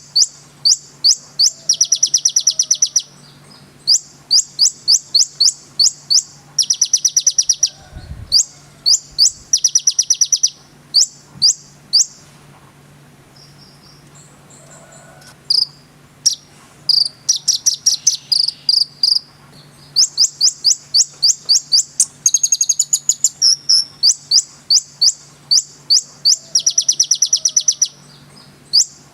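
A konin (kolibri ninja) sunbird singing: fast series of sharp, high chirps broken by rapid buzzy trills, with a pause of a few seconds about halfway through. A faint steady low hum runs underneath.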